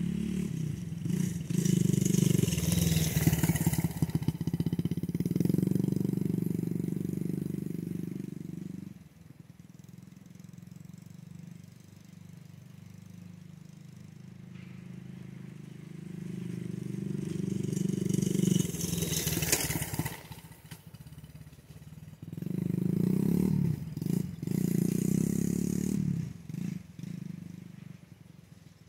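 Dirt bike engine running and revving as it rides around. It grows loud and fades away again several times as the bike comes near and moves off: loud at first, faint about a third of the way in, loud again for two stretches in the second half, and faint near the end.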